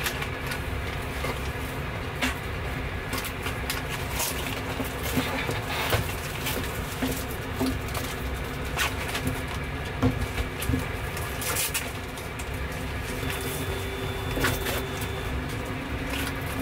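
Steady low rumble and hum of a parked airliner's cabin, with scattered short clicks and knocks as safety equipment is handled and checked.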